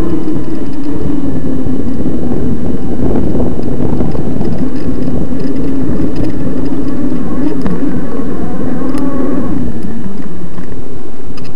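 Electric mountain bike's motor whining at about a quarter power with moderate pedalling, its pitch wavering up and down with speed, over a heavy rumble from the trail and wind on the microphone. The whine fades near the end.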